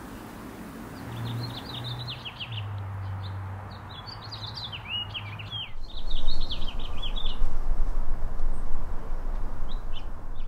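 Small birds chirping and twittering in quick runs of short, high, falling notes. A steady low hum lies under the first half, and from about halfway a louder low rumble takes over while the chirping goes on.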